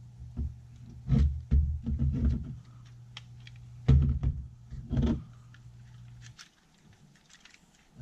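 Plastic knocks and clicks from handling an E46 BMW HVAC climate-control panel as its face is pressed back onto the unit, in several short bursts. A low steady hum underneath cuts off about six seconds in.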